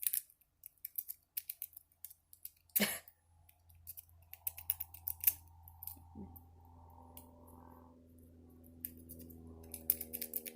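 Metal wave rake scraping and clicking against the pins of a pin tumbler gun lock held under a tension bar, in quick irregular strokes with one louder click about three seconds in; the lock does not open. A faint steady hum sets in past the middle.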